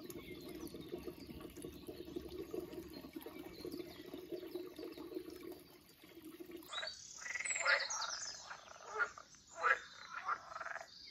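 Frogs croaking: a steady, rippling low chorus, then after a cut about two-thirds in, louder, irregular sharp croaks and clicks.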